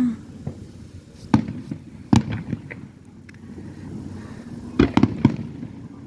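Aerial fireworks going off: sharp booms about a second and a half in and again just after two seconds, then a quick cluster of three or four bangs around five seconds in, with smaller pops in between.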